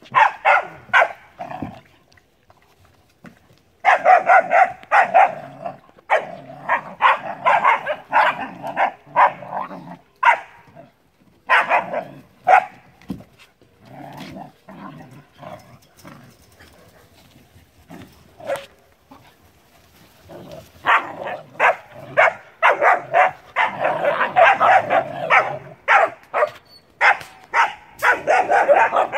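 Several puppies barking and yipping at play, in rapid flurries of short, high yaps with brief lulls between; the longest flurry comes near the end.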